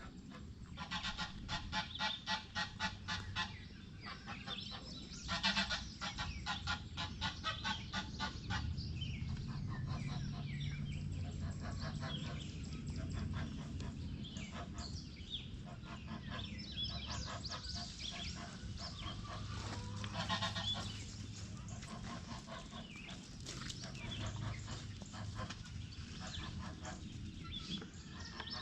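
Domestic poultry calling in rapid runs of repeated calls, about five a second, in several bouts with quieter calling between them.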